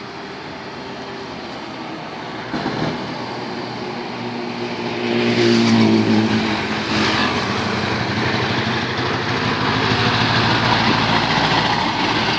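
Scania R580's V8 diesel engine running as the truck approaches and drives slowly past, growing louder to a peak as the cab goes by about halfway through, then staying loud with tyre and body noise as the long rigid body rolls past.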